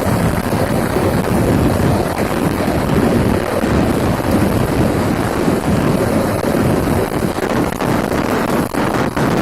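Wind buffeting the microphone: a loud, steady, gusting rumble, with a few short clicks near the end.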